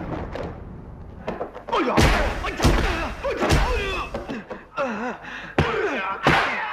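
Martial-arts film fight sound effects: a quick series of punch and kick impact thuds, with fighters' sharp yells and grunts over several of the blows.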